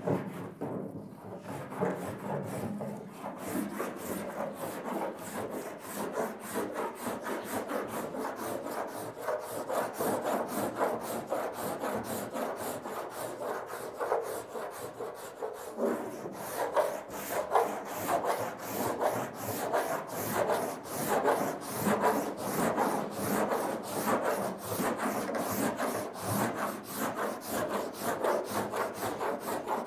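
Hand-held body filler file (cheese-grater rasp) scraping back and forth across partly set body filler on a car panel, in quick repeated strokes about three a second that get louder about halfway through. The filler is being shaved down while it is still setting up.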